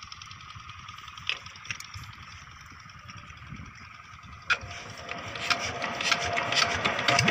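Small diesel irrigation pumpset engine being hand-cranked into life: a sharp clack about four and a half seconds in, then the engine catches and its rapid beat grows steadily louder toward the end.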